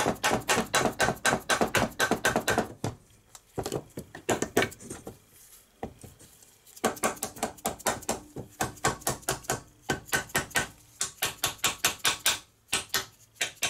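Plastic hammer tapping rapidly on the aluminium crankcase of a 1970 Briggs & Stratton 2 hp engine, about five light knocks a second, to part the crankcase cover from the block. Two long runs of taps with a pause of a few seconds between them.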